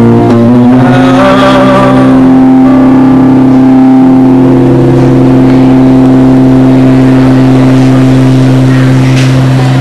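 Live guitar music, very loud: a chord with a steady low note rings on and is held, after a few shifting notes in the first two seconds.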